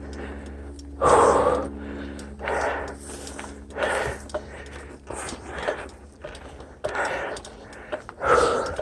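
A mountain biker breathing hard from the effort of pedalling uphill, about one heavy breath every second and a half.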